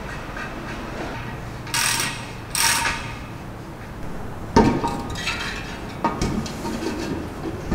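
Metal parts being handled: two short rasps, then a sharp knock a little past halfway as the tube bundle is set into the welded aluminium heat exchanger shell, followed by a run of lighter metal clinks and taps.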